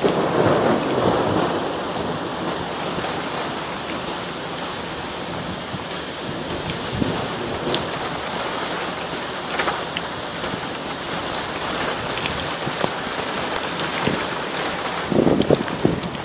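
Heavy rain pouring down in a steady dense hiss, with scattered drop ticks. There is a stronger low swell near the start and again near the end.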